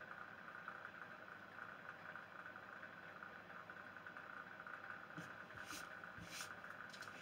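Faint steady hum, then from about five seconds in a few short rasping strokes, about half a second apart: Briwax paste wax being rubbed by hand into a stripped pine door.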